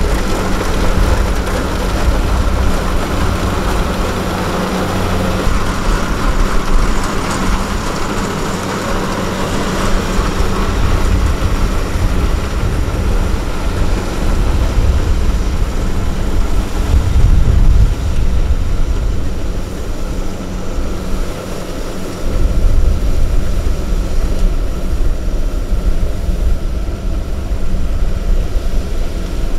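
Diesel engine of a farm machine running steadily under load, with a continuous low drone.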